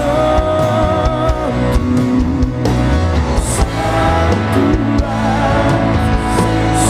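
Worship band music with guitar and sustained sung or held melody.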